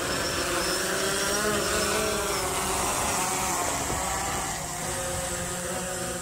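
Quadcopter drone's motors and propellers buzzing as it lifts off and climbs, the pitch wavering up and down as the motors change speed.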